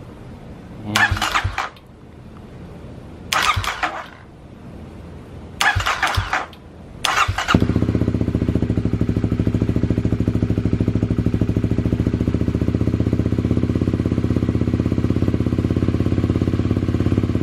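Kawasaki KLX250's single-cylinder four-stroke engine cranked on the electric starter in three short tries that don't catch, then starting on the fourth about seven seconds in and settling into a steady idle.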